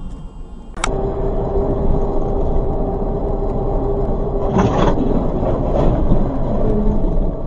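A car's engine and road noise running as a steady rumble with a held tone, after a sharp cut just under a second in. A brief louder noisy burst comes a little past the middle.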